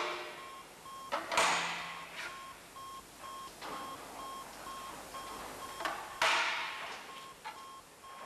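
Sheet metal and steel clamp bars on a Magnabend electromagnetic folder clanking as a box is folded: three sharp metallic clanks that ring away, at the start, about a second in, and around six seconds in. A steady repeating electronic beep runs beneath them.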